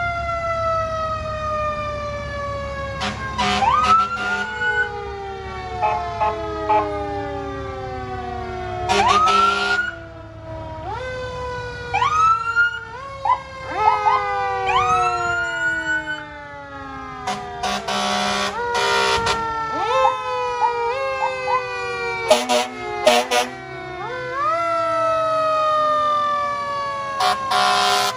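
Sirens of several passing fire trucks and emergency vehicles, overlapping, each rising quickly in pitch and then winding down slowly. They are broken by short, loud horn blasts, several of them in the second half.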